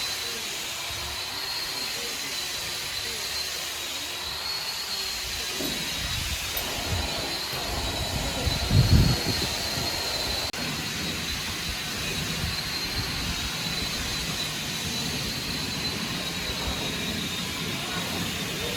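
A machine running steadily with a high, wavering whine, and a deep, louder rumble about nine seconds in.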